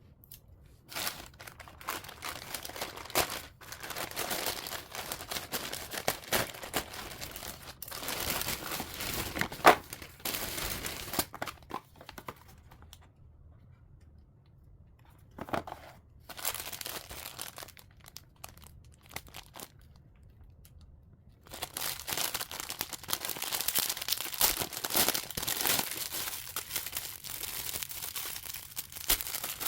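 Packaging being crinkled and torn by hand, in irregular spells of rustling with small clicks; it mostly stops for several seconds in the middle, then picks up again more densely.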